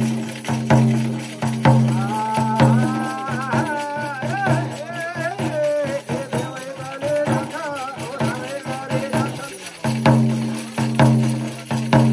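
Jhakri shaman's frame drum (dhyangro) beaten in a steady rhythm, about three beats a second, with jingling bells. From about two seconds in the drumming thins while a high, wavering voice chants, and the full drumming returns near the end.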